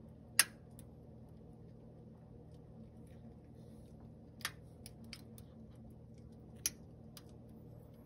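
A few sharp, isolated clicks over a steady low hum: a strong one about half a second in, another near the end, and several fainter ones between.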